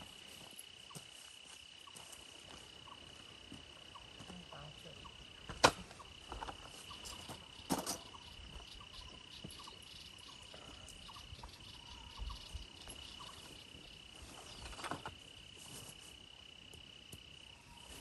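A steady, high, thin insect trill runs throughout. Over it come a few sharp knocks and rustles as tent gear is handled and set down on gravel, the loudest a single sharp knock about six seconds in.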